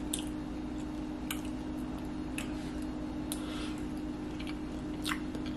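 A person chewing a mouthful of food, with about five short, sharp wet mouth clicks and lip smacks roughly a second apart, over a steady low hum.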